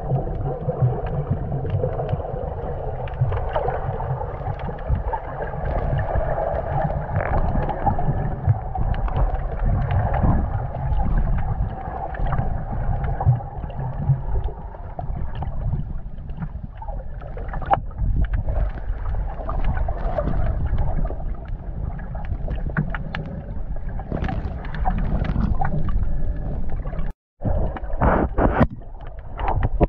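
Muffled underwater noise picked up by a submerged camera: a steady low rumble of moving water with scattered faint clicks and crackles. The sound cuts out for a moment near the end.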